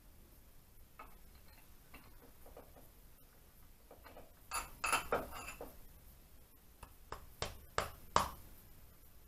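Light metallic clicks and knocks from handling a warmed piston at the connecting rod of an Ariel motorcycle engine: a cluster of clicks about halfway, then four or five sharper clicks near the end, the last the loudest.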